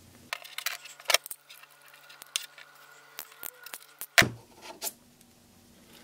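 Hand tools and wire being handled on a tabletop: scattered light metallic clicks and clinks, with a couple of louder knocks.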